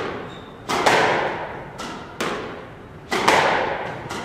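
Squash ball being hit back and forth in a drill: sharp racket-and-wall hits roughly one to one and a half seconds apart, each ringing out in the court's echo.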